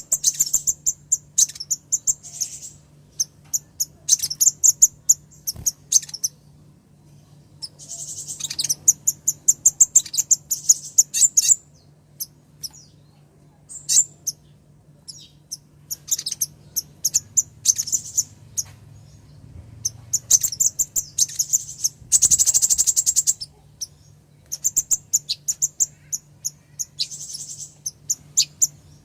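Female kolibri ninja (sunbird) calling: rapid runs of thin, high chirps in repeated bursts, the call of a female calling to a male.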